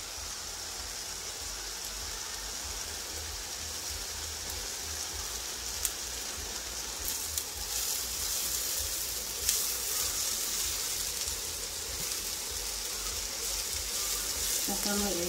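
Diced onion and grated carrot frying in oil in a skillet: a steady sizzle, with a few light clicks as a spatula stirs them.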